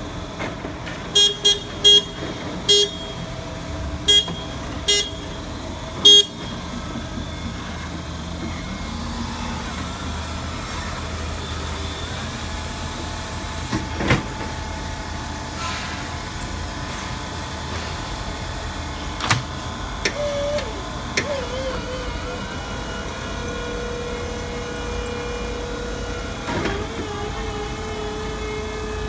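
Stand-up electric reach forklift: a burst of about seven short, loud beeps at uneven spacing over the first six seconds, then the truck's electric motors and hydraulics running with a steady hum and a held whine that comes in during the last third.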